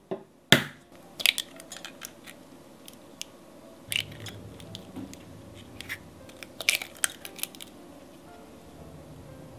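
Stainless wire egg separator clinking against a glass mixing bowl, then an egg cracked open by hand with a crunch of shell. The loudest clink comes about half a second in, the crack about four seconds in, and a few more light clicks and taps near seven seconds as the shell is pulled apart.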